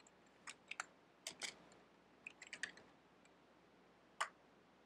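Faint computer keyboard keystrokes: short clusters of key clicks while a command is typed, then one lone keystroke about four seconds in.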